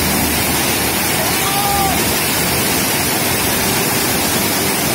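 Waterfall pouring over rock ledges at close range: a steady, even rush of falling water.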